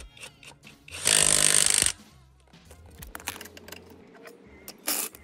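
Brushless 18 V cordless impact wrench (Topshak TS-PW1) hammering for about a second on a car's wheel lug nut, opening it easily, with a brief second burst near the end and metal clicks of the socket around it.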